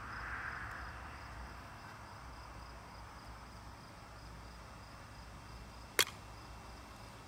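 Faint steady chirping of insects in the grass, with a single sharp click near the end from a spray paint can being handled.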